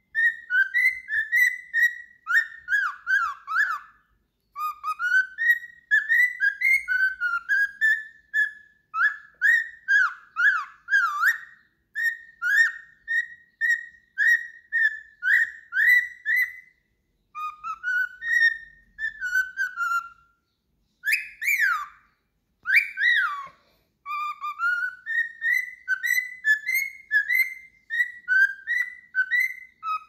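Cockatiel whistling a long string of quick, clear notes that slide up and down, in phrases broken by short pauses. Just past the middle come two louder notes that swoop steeply downward.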